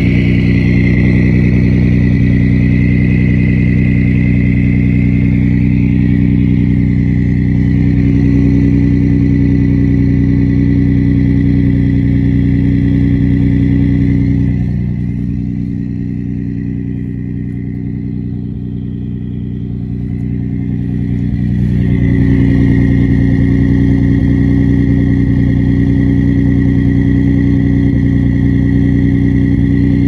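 Ford 3.5L EcoBoost twin-turbo V6 idling, heard at the exhaust tips: a steady low exhaust note with a high, steady turbo whistle over it. Both drop in level for several seconds around the middle, then come back.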